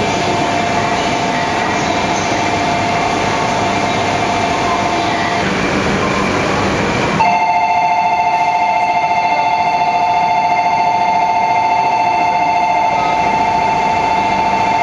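JR East 200 series Shinkansen standing at the platform, its onboard equipment giving a steady high whine over station background noise. A little over seven seconds in, the sound changes abruptly to a quieter background in which the whine stands out more.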